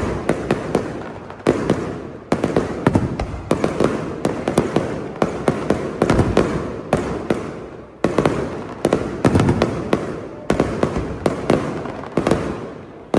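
Fireworks display: rapid volleys of aerial shell bursts and crackling reports, coming in dense clusters with booming echoes trailing off between them.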